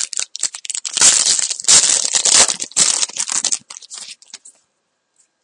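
A hockey card pack wrapper being torn open and crinkled by hand, a dense crackling rustle that dies away about four and a half seconds in.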